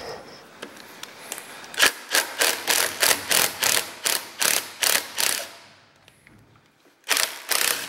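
Cordless impact driver backing a screw out of a metal cover plate: a rapid, even run of sharp impacts, about three a second for some three and a half seconds, then a pause and two more impacts near the end.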